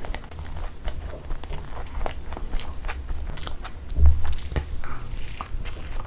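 Close-miked chewing and biting of puri with egg masala eaten by hand, with many short clicking mouth sounds. A heavy low thump about four seconds in is the loudest sound.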